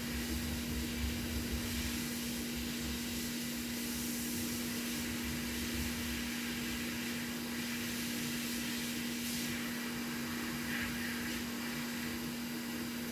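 Heat gun blowing steadily: a constant motor hum under a rushing hiss of hot air, heating the PS5 board to melt the solder holding the HDMI port.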